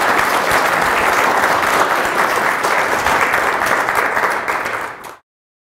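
Audience applauding steadily, a dense patter of many hands clapping, cut off abruptly about five seconds in.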